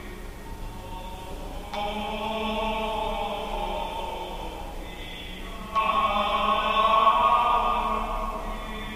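Church music of long held chords. A new chord comes in suddenly about two seconds in and again just before six seconds in, the second the loudest.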